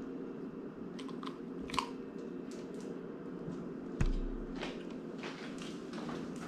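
A greyhound crunching and chewing a crispy baked bacon, cream cheese and bread treat, with sharp irregular crunches. A thump comes about four seconds in, followed by more clicks as the dog walks off across the tile floor.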